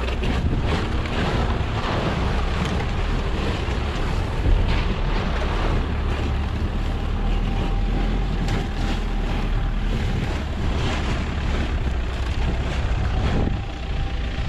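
Car driving off-road through sand, its engine running under load, with heavy wind noise on the microphone.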